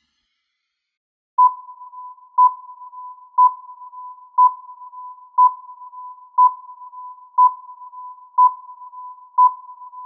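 Electronic countdown timer beeping once a second, a single high beep tone that starts about a second and a half in, nine beeps in all, each ringing on faintly until the next.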